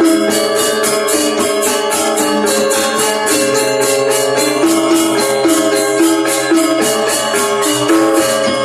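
Balinese gamelan music featuring the reyong, a row of small bronze gong-chimes, playing quick shifting notes over sustained ringing tones. A fast, even beat of bright metallic strokes runs through it.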